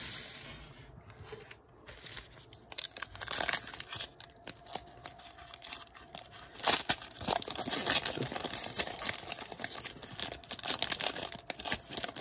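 The wrapper of a Panini Classics football card pack crinkling and tearing open in the hands. The first couple of seconds hold only soft rustles. From about two and a half seconds in come continuous crackles, with a sharp loud crinkle about seven seconds in.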